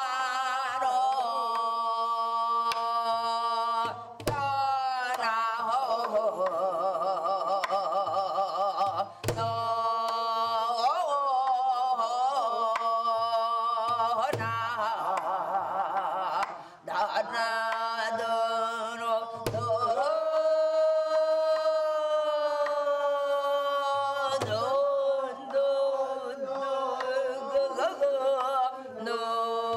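Korean traditional vocal music: a voice singing with wide, wavering vibrato and sliding pitches over a steady held drone, with a low drum stroke about every five seconds.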